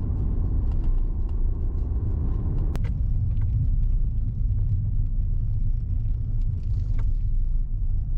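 A vehicle's engine and road rumble heard steadily from inside the cab while driving. A sharp click comes about three seconds in, and after it the higher part of the engine note falls away, leaving the low rumble.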